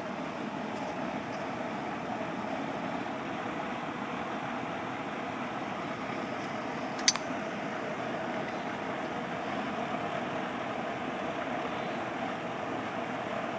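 Steady background hum, with one sharp, loud crack about seven seconds in from a Browning Buck Mark .22 rimfire pistol.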